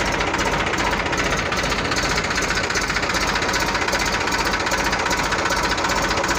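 Eicher 380 tractor's three-cylinder diesel engine running steadily, with a fast, even beat.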